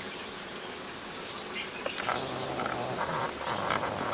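Insects trilling steadily on one high pitch. About halfway through, low drawn-out calls join in.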